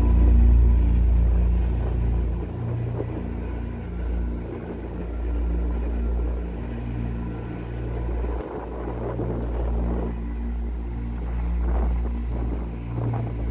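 Low, steady rumble of a ship's engine, with a rushing haze of wind and water noise over it.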